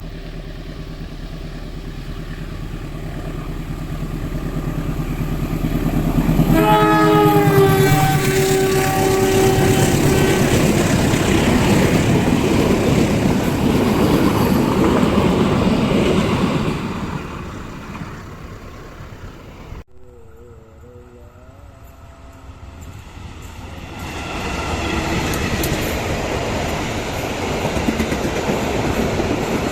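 Train passing at speed. A locomotive's multi-tone horn sounds about a quarter of the way in, then the cars rush by with wheel clatter. After a sudden cut, another train's rumble builds again.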